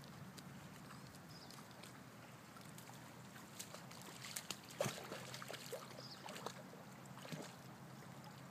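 Quiet sloshing and small splashes of pond water as dogs move in the shallows and along a fallen log, with a few short sharper splashes or knocks about four to five seconds in.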